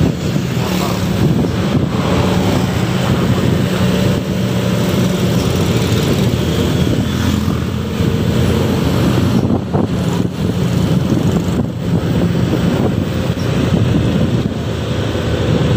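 Steady engine drone with rushing road and wind noise, heard from a moving motorcycle following close behind a loaded log truck on a climbing, winding road.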